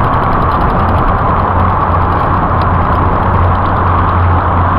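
Steady street traffic noise with a low engine hum from a motor vehicle running close by.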